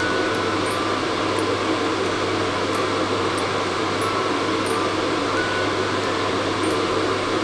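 Hair dryer running with a steady, even blowing noise and a low hum, unchanging throughout, over faint short high chiming notes.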